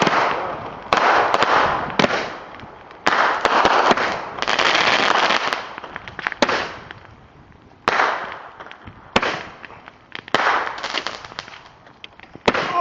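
Fireworks going off in quick succession: about ten sharp bangs, one every second or so, each trailing off in a fading crackle over a second or two.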